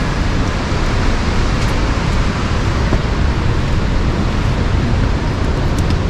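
Rushing water of a waterfall and the river below it: a loud, steady roar with no breaks.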